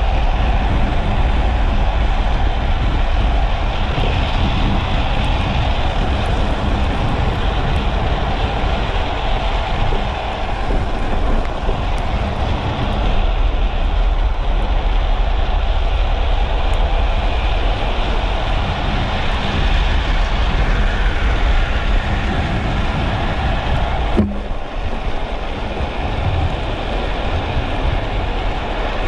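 Wind rushing over the microphone with the steady rumble of a speed trike's wheels rolling fast on asphalt, at around 40 to 60 km/h. Its hard plastic-sleeved rear wheels slide on the road through the drift.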